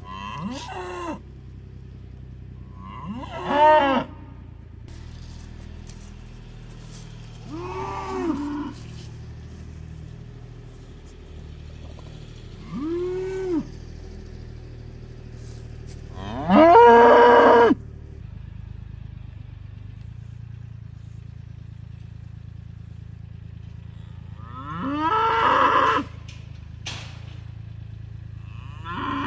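Cattle mooing: about seven separate calls, several rising and falling in pitch, the loudest and longest a little over halfway through, with a steady low hum underneath.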